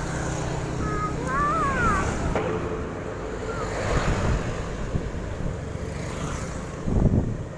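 Steady wind buffeting the microphone over a low rumble, as when moving along outdoors. About 1 to 2 s in there are short warbling high tones, and near the end a brief loud bump.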